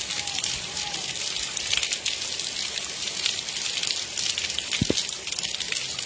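Light rain falling steadily: an even hiss of drops on wet pavement, with many tiny patters. A single short low knock about five seconds in.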